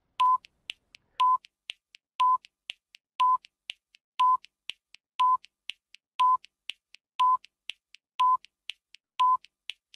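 Countdown timer beeping once a second, ten short even beeps, with fainter ticks in between, counting down from ten to zero.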